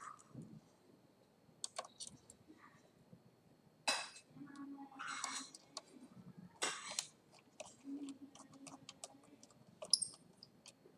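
Screwdriver turning small screws in a laptop's plastic base, with many light clicks and a few louder knocks of metal on plastic as the tool is set into the screw heads.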